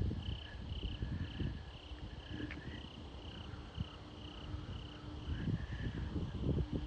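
Crickets chirping steadily at about two chirps a second, with gusts of wind rumbling on the microphone.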